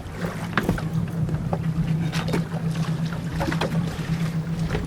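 Small fishing boat's motor running with a steady low hum, with scattered small clicks and knocks over it.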